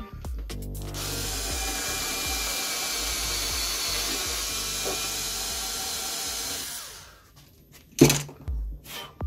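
Small power drill with a 3 mm bit drilling a hole, running steadily for about six seconds and then stopping. About a second later there is a single sharp knock, the loudest sound.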